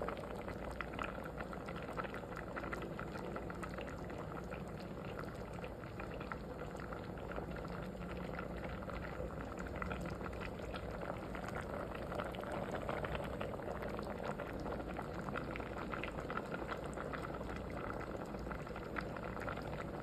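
Liquid boiling in a pot, a steady bubbling with many small pops throughout.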